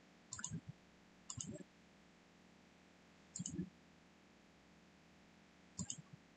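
Computer mouse clicking: four short bursts of clicks, each a quick press-and-release, spaced about one to two and a half seconds apart against a near-silent background.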